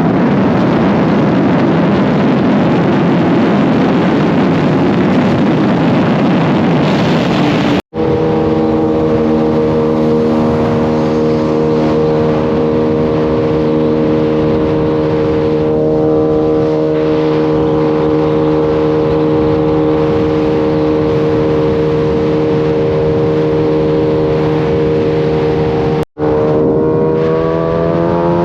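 Kawasaki sport bike's inline-four engine on the road: first heavy wind rush with the engine buried under it, then after a cut a steady engine note held at constant revs, and after another cut near the end the revs start to climb.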